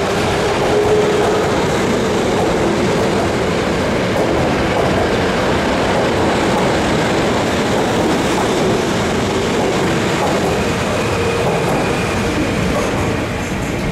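Osaka Metro 21 series subway train pulling out of an underground station, its running noise steady and loud, then starting to fade near the end as the last car goes past.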